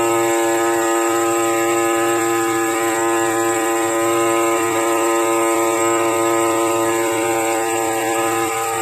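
Pneumatic air scribe running steadily as its stylus works the rock matrix beside a small fossil crab, a loud buzz holding one pitch throughout.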